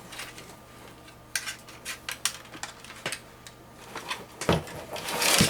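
Scattered light clicks and taps of PC case hardware and fan parts being handled, with a louder knock about four and a half seconds in.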